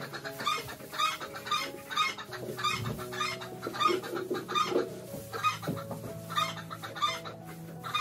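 Chickens clucking in short calls about twice a second, over background music with long held notes.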